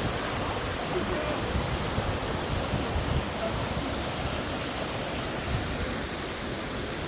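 Steady rush of a waterfall, with low gusty rumbles on the microphone.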